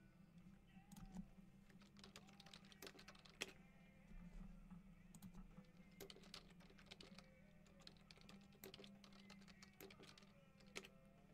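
Faint typing on a computer keyboard: irregular runs of light key clicks.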